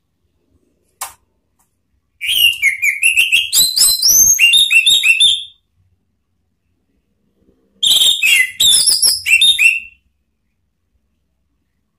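Orange-headed thrush (anis merah) singing two fast phrases of high, sliding whistled notes, the first starting about two seconds in and lasting some three seconds, the second starting about eight seconds in and lasting about two. A short faint click comes about a second in.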